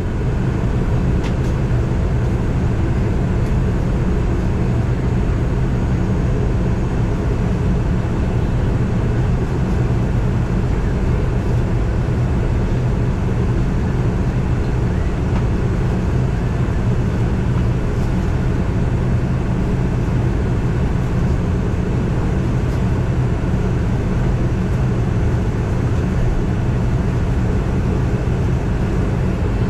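ATR 72 turboprop airliner's engines and propellers running with a steady drone and a low hum, heard from inside the passenger cabin.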